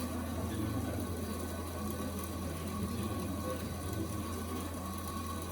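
Dental amalgamator running, shaking an amalgam capsule to mix the alloy with the mercury: a steady mechanical hum with a faint whine above it.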